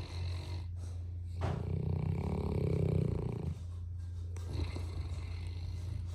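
A sleeping English mastiff snoring: one long snore from about a second and a half in to about three and a half seconds, over a steady low hum.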